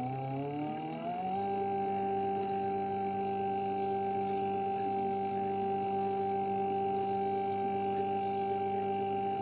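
Small electric motor of a homemade plastic-bottle filament-making machine, whining as it speeds up over about the first second, then running at a steady speed with a constant whine.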